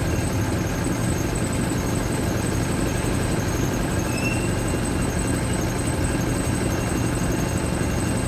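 Mercedes-Benz OF-1722M bus's diesel engine running steadily, a low, even drone with no revving.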